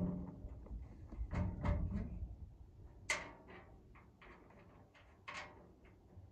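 A series of knocks and clicks as bolts and the under-step storage box are handled and fitted to the RV frame, with a few sharper hits near the middle.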